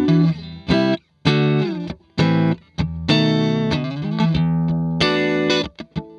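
Electric guitar, a Fender Stratocaster played through a JHS Whitey Tighty compressor into a Vox AC30 amp: a run of short strummed chord stabs, each sharply muted, with one chord held for about a second midway.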